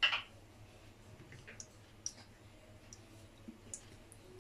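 A short scrape of a utensil against a nonstick frying pan, then a few faint scattered clicks.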